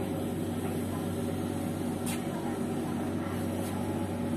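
Steady hum inside a standing air-conditioned passenger rail coach, its ventilation running with a low drone and a few steady tones, with a brief click about two seconds in.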